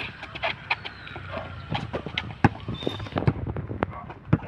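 Basketball dribbled hard on a concrete road, sharp bounces at uneven intervals of roughly half a second, mixed with the players' sneakers scuffing on the pavement.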